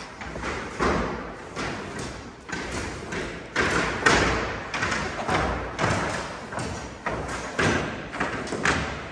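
A steady series of heavy thuds, about two a second, each ringing on briefly in a large echoing space.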